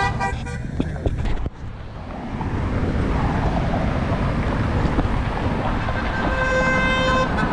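Car horns from passing traffic: a few quick toots right at the start and one steady honk held for about a second near the end. Between them is the steady noise of cars going by, with wind on the microphone.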